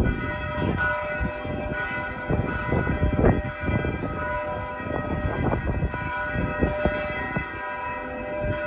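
The large bells of St. Vitus Cathedral ringing in full swing. Clapper strikes fall at uneven intervals, about one a second, over a continuous hum of overlapping ringing tones.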